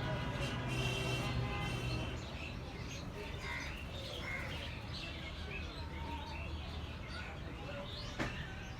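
Birds chirping with short scattered calls over a low steady hum, with a single sharp click near the end.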